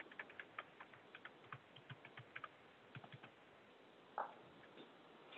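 Faint computer keyboard typing: quick, irregular clicks that thin out after about three seconds.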